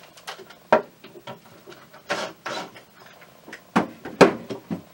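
Handling noises of a cordless drill at a wooden mounting board: clicks and a couple of short rubbing sounds, then two sharp knocks near the end as the drill is set down on a wooden table, the second knock the loudest.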